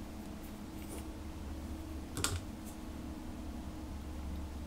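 Light plastic clicks and taps from a small plastic lip balm pot and its lid being handled, with one sharper click about two seconds in, over a steady low hum.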